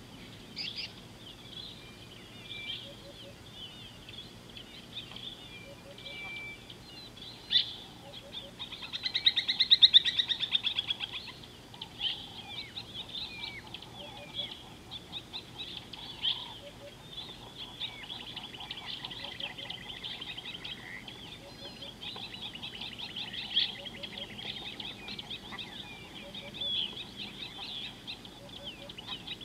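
Several wild birds in African bush calling and chirping, with a loud, rapid trill about a third of the way in and more trilling later. A faint low double note repeats every second or so underneath.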